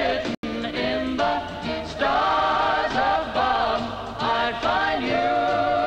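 A male vocalist singing a 1950s pop love song over musical accompaniment, holding long drawn-out notes. The audio cuts out for an instant just under half a second in.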